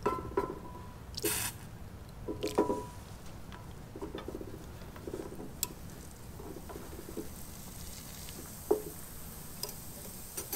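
Metal wire hook clinking and scraping against a glass measuring cup as a 3D-printed part is lowered into a hot electroless nickel plating bath, with a few sharp taps and light glassy rings. A faint fizz of gas bubbles rises from the bath as the plating reaction gets going, stronger in the second half.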